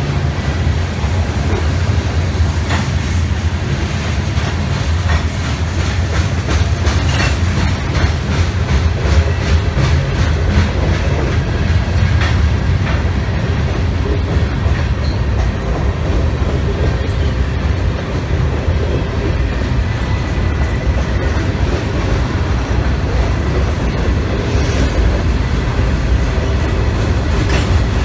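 A train's cars rolling past on the track with a steady heavy rumble, the wheels clicking rapidly over the rail joints.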